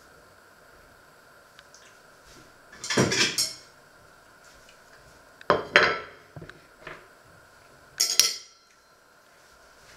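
Dishes and cutlery clattering in three short bursts a couple of seconds apart, with a few small clicks between. The last burst is a porcelain plate with a fork on it being set down on a wooden worktop.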